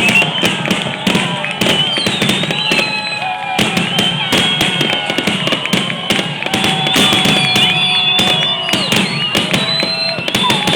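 Fireworks finale: a rapid, continuous barrage of bangs and crackles, many a second, with whistling tones gliding up and down among them.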